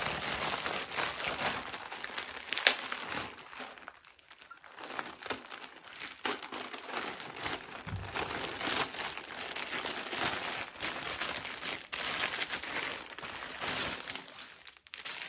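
Plastic mailer bag and plastic wrapping crinkling and rustling as a parcel is torn open and the item pulled out, with one louder crackle a little over two seconds in.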